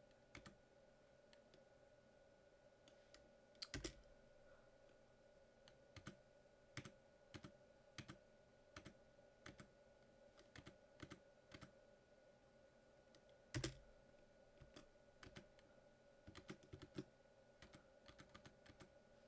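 Computer keyboard keys pressed in an irregular run of faint clicks, with two heavier key strikes, one about four seconds in and one near fourteen seconds. A faint steady hum lies beneath.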